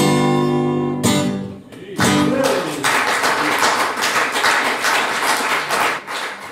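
Acoustic guitar strumming the closing chords of a blues song, the final chord struck about two seconds in and left to ring. Clapping follows for a few seconds and dies away near the end.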